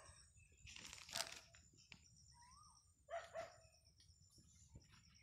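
A dog barking a few times, faint: one bark about a second in and two quick barks about three seconds in.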